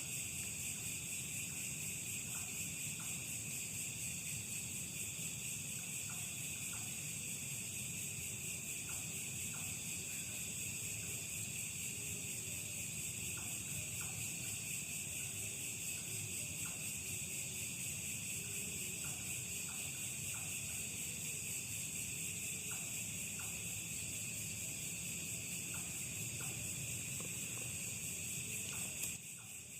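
Steady, continuous chorus of night insects, crickets and the like, with short faint chirps scattered through it. The chorus drops a little just before the end.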